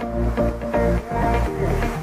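Background electronic dance music with a steady beat.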